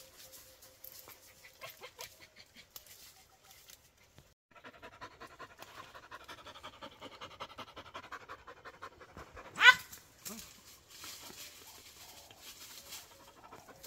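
Hunting dog panting fast and steadily, with a short, loud, sharply rising cry about two-thirds of the way through. Light rustling and clicks in the brush before the panting sets in.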